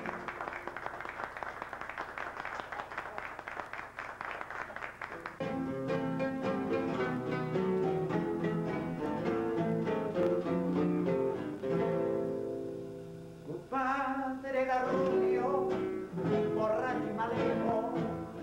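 A small group applauding for about five seconds, then two acoustic guitars begin playing plucked notes and chords, dropping briefly and coming back stronger.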